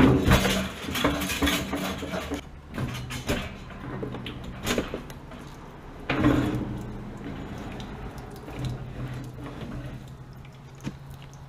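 Metal clanks, knocks and scraping as an old gas water heater tank is rocked and tilted out of its alcove, with the loudest knocks at the start and about six seconds in. A steady low hum runs underneath.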